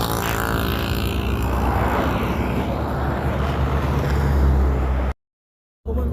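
Steady low rumble of a motor vehicle running. It cuts out abruptly to silence for under a second near the end.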